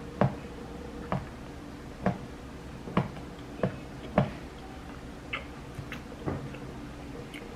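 Chewing food close to the microphone: a series of about eight short clicks, roughly one a second, fading out near the end.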